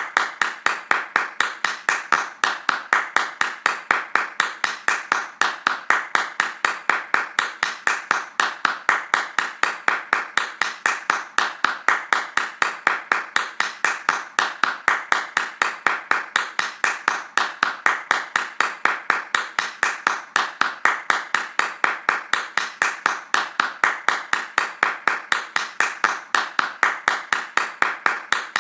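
Fast hand clapping: sharp, evenly spaced claps in a steady rhythm that never breaks.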